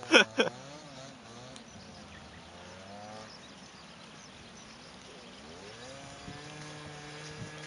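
A small motorcycle engine, heard faintly, revs and falls back a few times, then settles into a steady idle about six seconds in. It opens with a short burst of a voice laughing or calling out.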